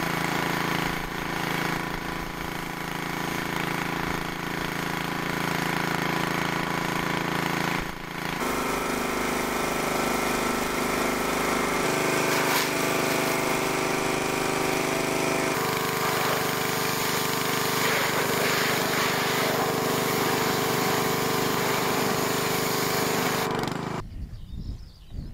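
212cc single-cylinder four-stroke gasoline engine running steadily while driving a high-pressure washer pump, with the hiss of the water jet. The engine note changes abruptly a few times, and about a second before the end the sound cuts off, leaving quieter outdoor ambience.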